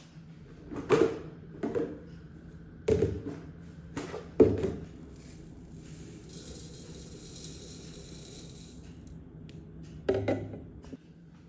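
A few separate knocks and clatters of hard objects being handled and set down, with a soft hiss for a few seconds in the middle.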